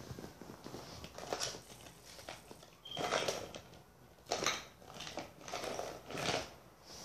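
Faint, irregular rustling and shuffling sounds with a few soft bumps, coming in short bursts about a second apart.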